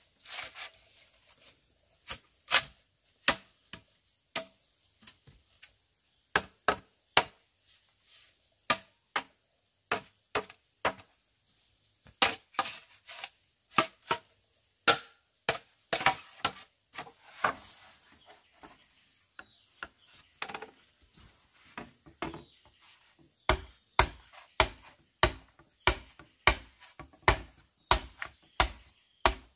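Repeated chopping strokes of a blade striking wood, irregular at about one or two a second, then coming faster and heavier near the end.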